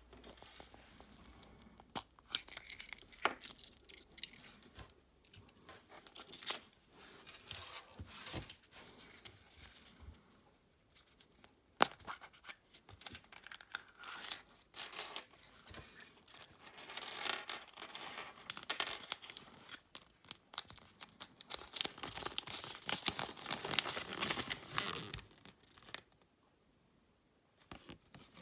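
Foil wrapper of a Kinder Surprise chocolate egg being crinkled and torn off by hand: irregular crackling and rustling with a few sharp clicks, densest and loudest in the second half, then stopping about two seconds before the end.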